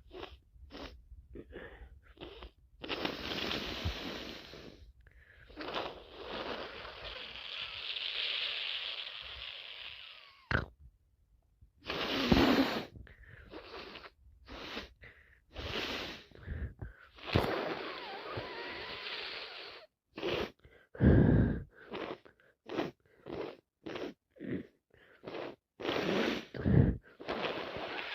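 A woman with a cold breathing and sniffling through a stuffy nose: several long wheezy breaths and many short sniffs, with a couple of louder bursts.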